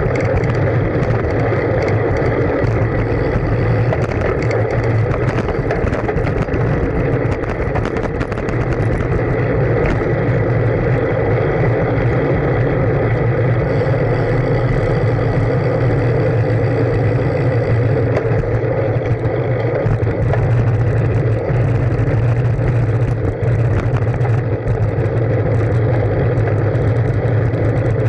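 Steady wind and tyre noise from riding a bicycle along pavement, heard through the camera's microphone as a constant rumble with no break.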